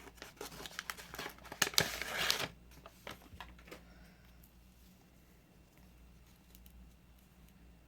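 Crinkling and rustling of plastic packaging and trading cards being handled, busy for about two and a half seconds, then dropping away to a few faint taps over a low room hum.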